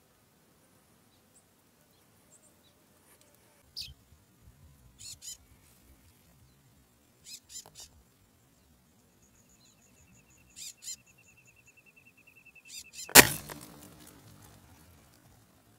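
Several short, high bird chirps and a few seconds of a high, steady trill, then about 13 seconds in a single sharp rifle shot, the loudest sound, fired through a scope at birds coming to a watering hole.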